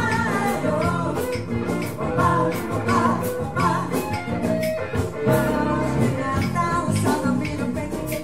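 A live band playing an upbeat Latin-style song. A woman sings lead over electric guitars, keyboard and drum kit, with a steady rattling shaker-type percussion beat.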